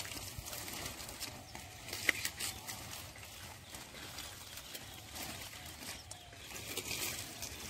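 Water hyacinth leaves and stems rustling and crackling as hands push through them in wet mud, with one sharper click about two seconds in.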